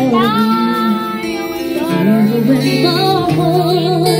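Background music: a song with a woman singing a wavering, gliding melody over sustained low instrumental notes.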